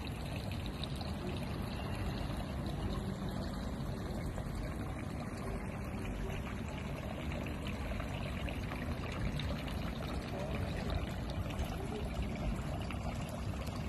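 Steady rushing noise with a strong low rumble.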